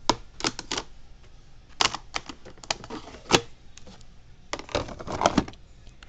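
Handling noise: irregular sharp clicks and knocks in three quick clusters, one at the start, one around two to three seconds in, and one near the end.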